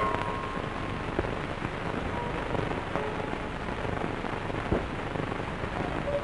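Steady crackling hiss of a worn old recording, with scattered clicks and faint traces of music.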